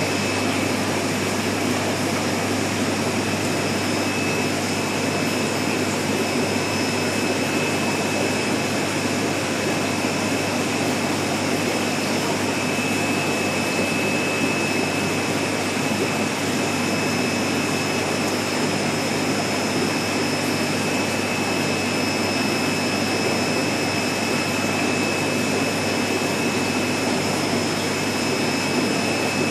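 Steady machine noise: an even hiss with a low hum underneath and a constant high whine on top, unchanging throughout, like pumps, filters or fans running.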